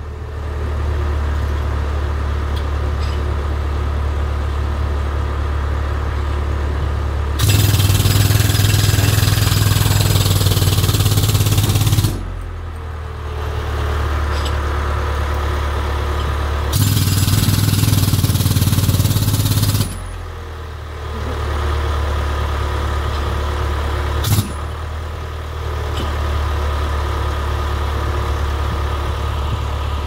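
A jackhammer hammering in two long runs, one about four seconds and one about three, over the steady drone of an engine running throughout. There is a single sharp knock about three quarters of the way through.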